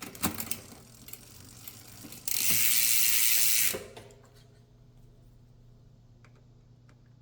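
Bicycle rear freehub ratcheting: a few clicks at first, then a loud steady buzz for about a second and a half as the wheel spins freely, then scattered faint ticks.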